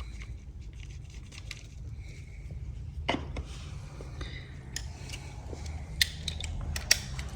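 Scattered light clicks and clinks of hand tools and engine parts being handled, with a sharper knock about three seconds in and a few more clicks near the end, over a steady low hum.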